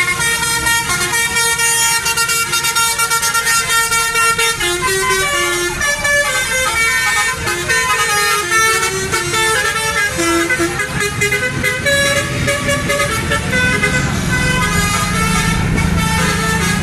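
Telolet horns on tour buses, several at once, playing quick stepping tunes over each other, with bus engines running underneath.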